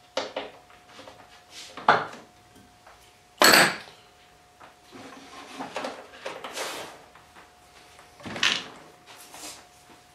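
Knocks, clanks and scrapes of hand tools and bolt hardware against the wooden TV cabinet and its plywood chassis shelf as a chassis bolt is worked loose from underneath, with the loudest knock about three and a half seconds in.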